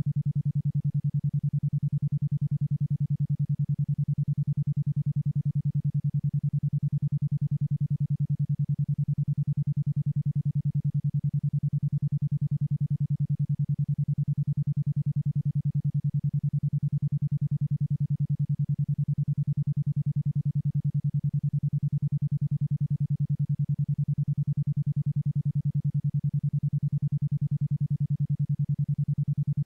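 A 10.2 Hz isochronic tone in the alpha range: a single low electronic tone switched on and off about ten times a second in an even pulse.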